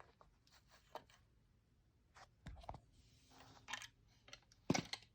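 Faint scattered clicks and taps of small plastic Lego pieces being handled and set down, with a sharper click near the end.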